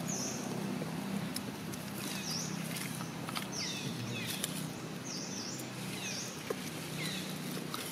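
Short, high chirping calls, each falling in pitch, repeating roughly once a second over a steady low hum, with a few faint rustling clicks.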